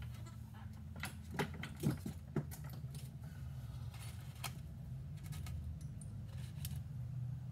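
Scattered light clicks and rattles of small hard objects being handled, over a steady low hum.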